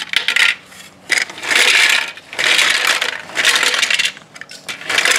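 Plastic toy bricks tumbling and clattering inside the plastic drum of a Bruder toy cement mixer as the drum is turned by its hand crank. The rattling comes in about five bursts, roughly a second apart.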